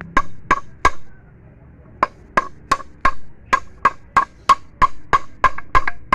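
Light metal-on-metal hammer taps on the end of a Mazda manual gearbox shaft, driving the gear and synchronizer assembly home into the case. Each tap rings briefly; three taps, a one-second pause, then a steady run of about three taps a second.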